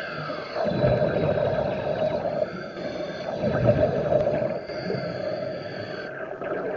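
Underwater noise picked up by a submerged camera: a steady hum with surges of low rushing water, and a faint high whine around the middle.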